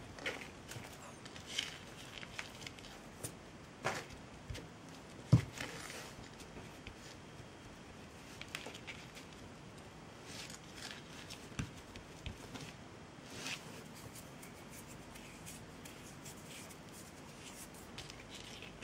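Faint handling sounds of hands working dry jute twine: scattered soft taps and rustles, with one sharper knock about five seconds in.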